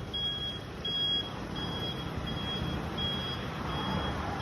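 Small truck's external warning beeper sounding a high-pitched electronic beep about every 0.7 seconds while the truck is stopped, with low engine and traffic rumble underneath.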